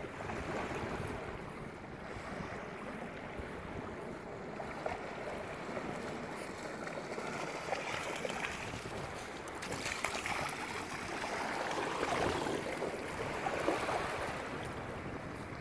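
Small waves and a dog's wake lapping and washing over the shoreline. Around the middle the splashing gets louder and busier as a husky wades through the shallows.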